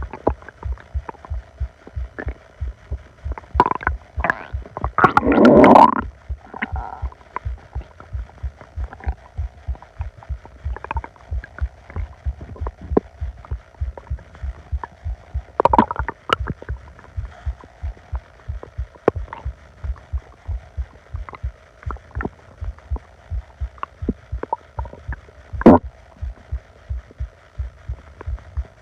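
An upset stomach growling, recorded close up on the belly. Short gurgles come and go, and the longest, loudest rumble lasts about a second, around five seconds in. Under them runs a steady low thumping of the heartbeat.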